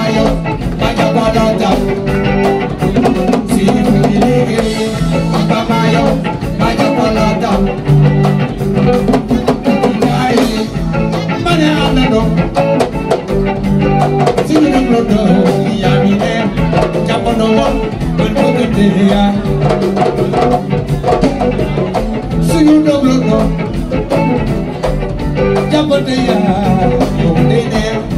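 Live band music: electric guitars playing over a drum kit and hand drums.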